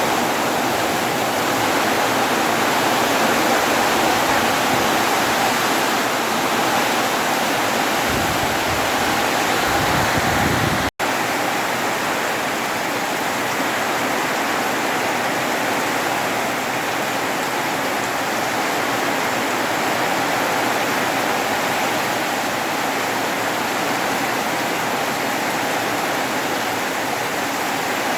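Heavy rain pouring down in a steady, loud rush, broken by a momentary dropout about eleven seconds in.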